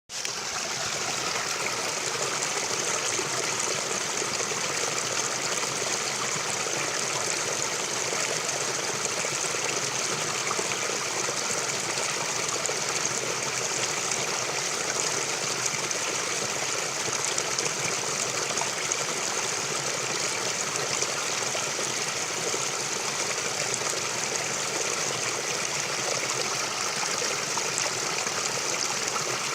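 Forest stream flowing steadily: an even rush and trickle of running water that fades in at the very start.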